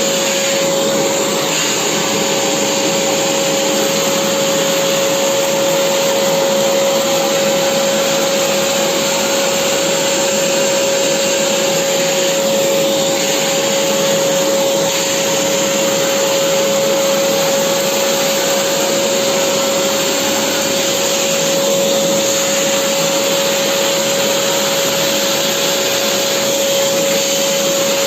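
Vacuum cleaner running steadily: a constant rush of air with a steady hum held at one pitch.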